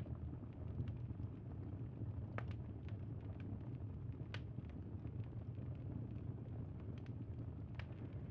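Campfire crackling: a steady low rumble with sharp pops and snaps at irregular intervals, the clearest about two and a half and four seconds in.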